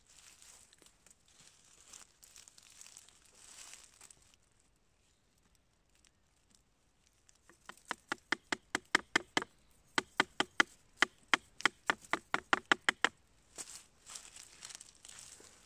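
A small knife blade chopping at the rotting strawberry-tree stump wood around the base of a reishi (Ganoderma lucidum) bracket: a fast even run of sharp knocks, about five a second, with a short break partway through. Before and after it, gloved hands rustle dry pine needles and leaves.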